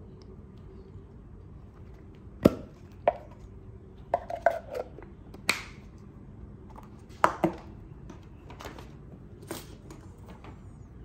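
Sharp clicks and knocks of a MUJI frosted polypropylene pen case being handled and set down, about a dozen in all. The loudest come about two and a half seconds in and again past halfway, with a quick run of taps between them.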